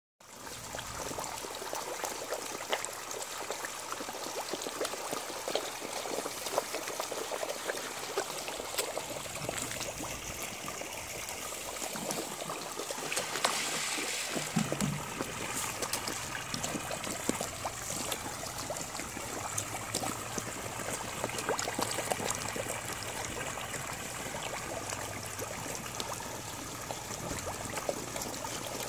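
Steady water trickling and splashing in a koi pond, with many small splashes and slurps from koi crowding and gulping at the surface.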